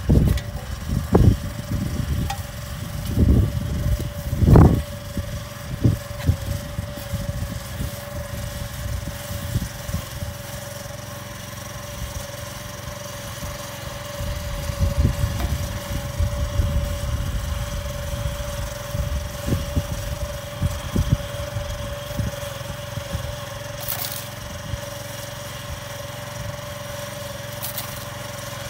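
A small engine runs steadily nearby, a constant even drone. In the first few seconds there are a few knocks and scrapes from hand scoops working the soil.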